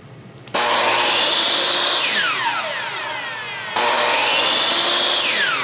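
Chop saw motor started twice with no cut. Each time it comes on suddenly, whines up to speed, runs briefly, then is switched off and winds down with a falling whine.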